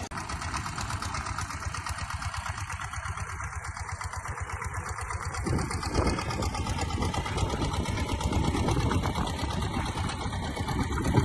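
Engine of a homemade jugaad tractor running with a fast, even clatter, getting louder about halfway through.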